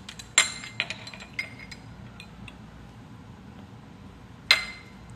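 Small glass prep bowls clinking and being set down: a cluster of sharp, ringing clinks in the first couple of seconds, then one louder clink about four and a half seconds in.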